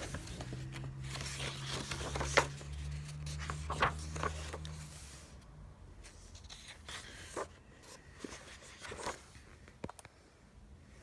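Pages of a paperback coloring book being turned and handled by hand: a series of short paper rustles and flaps. A low steady hum runs under the first half and stops about five seconds in.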